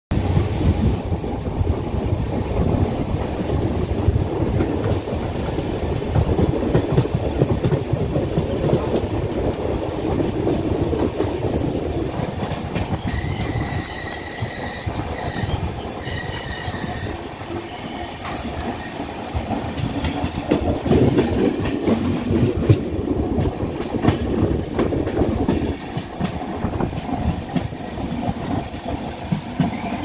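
Passenger train running along the track, heard from inside a moving carriage: a steady rumble with wheels clattering over the rails. A faint high whine comes in for a few seconds near the middle.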